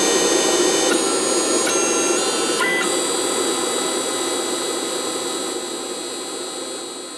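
Stepper motors of a CNC XY stage running as the stage plots with a marker: a steady mechanical hiss with high whining tones that jump to new pitches every few tenths of a second as the moves change. From about three seconds in the tones hold steady and the whole sound fades gradually.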